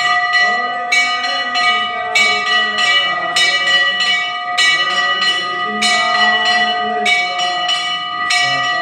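Hindu temple bell rung by hand continuously, struck about three times a second so that its bright ringing tone never dies away, with a stronger stroke roughly every second.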